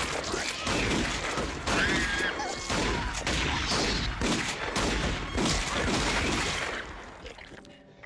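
Rapid, sustained gunfire with crashes and impacts, a dense volley of shots from a film action scene. There is a short wavering high cry about two seconds in, and the shooting dies away about seven seconds in.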